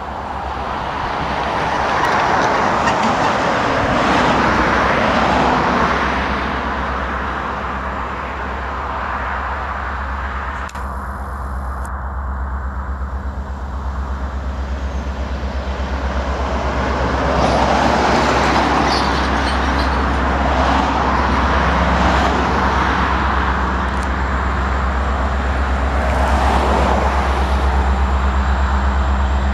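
Road traffic passing close by, several cars and trucks each swelling and fading as they go by, over a steady low rumble from an approaching freight train's diesel locomotives.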